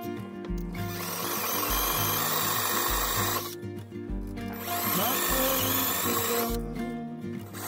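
Handheld power drill boring into a wooden rocker, running in two spells of a couple of seconds each with a short pause between. Background music with a steady bass beat plays underneath.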